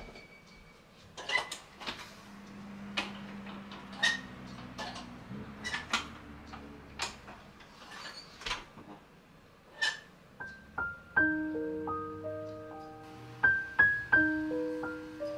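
Scattered sharp clicks and knocks, then a slow piano melody with single notes comes in about eleven seconds in and becomes the loudest sound.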